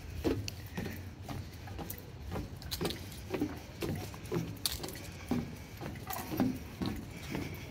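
Footsteps of a person walking along a trail at a steady pace, about one and a half steps a second.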